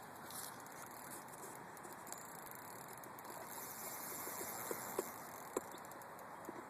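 Steady faint outdoor background hiss with a few scattered light clicks about two thirds of the way through.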